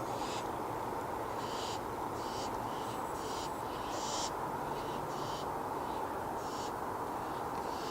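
Barn owls giving short, harsh hissing screeches, about eight in a row at uneven gaps, over a steady background hiss.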